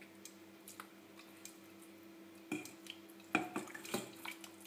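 Pieces of raw hake dropped by hand into a pot of fish broth: soft splashes and drips, with a few sharper clicks about two and a half and three and a half seconds in. A steady low hum runs underneath.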